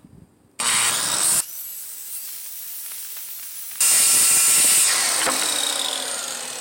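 Corded circular saw cutting through 3/4-inch plywood, loud from about half a second in with a quieter stretch in the middle and a second loud spell about four seconds in. Near the end it fades as the blade spins down.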